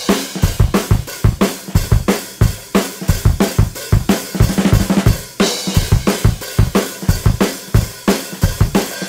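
Background music: a drum-heavy track with a fast, steady beat of kick, snare and cymbal hits.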